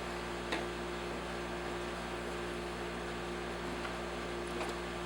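Steady electrical hum, with one sharp click about half a second in and a couple of faint clicks near the end as plastic parts of an upright vacuum cleaner are handled.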